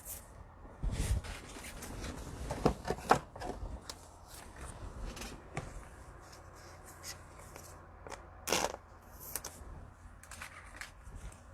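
Trading cards and card packs being handled: scattered rustles and a few sharp clicks over a low hum.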